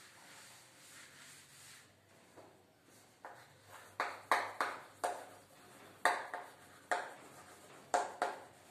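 Chalk writing on a blackboard: from about three seconds in, a run of sharp chalk strokes and taps, one or two a second.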